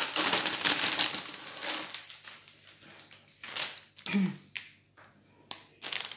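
Plastic wrapping crinkling as a rolled diamond-painting canvas is pulled out of it, for about the first two seconds, then lighter scattered rustles and taps as the roll is handled and set down.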